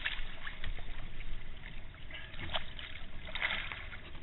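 Water splashing and sloshing beside a boat as a catfish is held alongside, with a couple of louder splashes late on.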